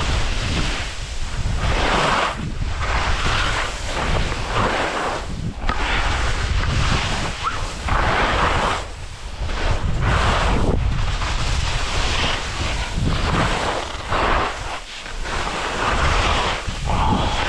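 Skis turning through soft late-season snow, each turn a swelling scrape and hiss about every second or so, over a steady rumble of wind on the microphone.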